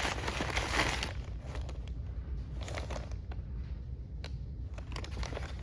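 Packaging crinkling and rustling for about a second, then quieter scattered clicks and taps of items being handled.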